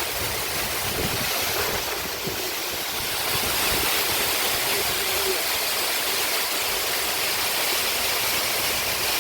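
Water pouring over a full reservoir dam's spillway: a steady, surging rush that gets a little louder about three and a half seconds in.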